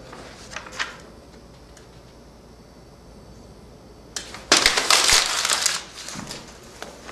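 A sheet of paper rustling and crumpling in one loud crackly burst lasting about a second, starting about four and a half seconds in. A few light paper rustles come near the start.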